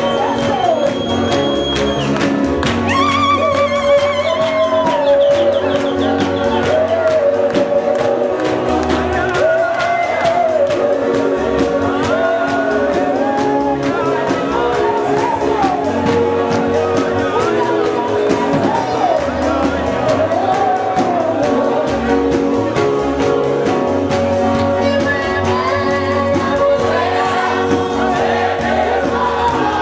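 Live Shona gospel song sung by several vocalists into microphones, amplified through the hall's sound system, over instrumental backing with a steady beat.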